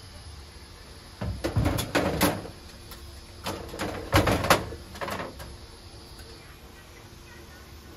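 Knocks and clatter of hard objects being handled, in two bursts: one starting just over a second in, the other around three and a half seconds in.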